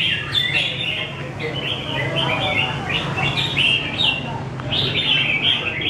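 Caged red-whiskered bulbuls singing: quick, short warbled phrases that follow one another closely without a break.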